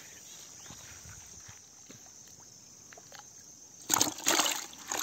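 Water sloshing and splashing in a farm pond, starting suddenly about four seconds in after a quiet stretch of outdoor background with a faint, steady high insect hum.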